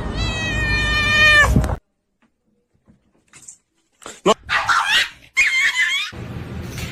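A held musical tone falls sharply in pitch and cuts off, then after a moment of silence a cat meows twice: two loud, drawn-out, wavering meows.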